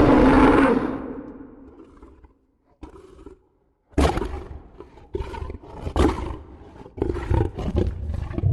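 Fictional monster roar sound effect: a loud, deep roar that fades away over about two seconds. After a near-silent gap, a run of about six short, sharp snarling roars begins about four seconds in.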